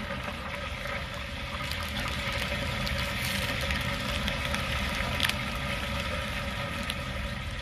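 Water rushing and refilling in a toilet after a flush, a steady hiss of running water. Now and then the foil booster pack crinkles as fingers work at it.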